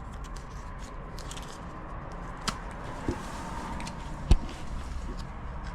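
Handling sounds: a few scattered light clicks and knocks, the sharpest about four seconds in, over a steady low hum.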